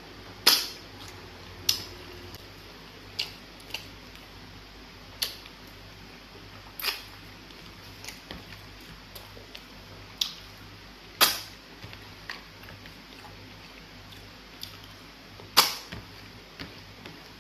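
Close-miked mouth sounds of eating soup by hand: sharp, wet smacks of lips and fingers, about eight of them at irregular gaps of a second or more, over a faint steady low hum.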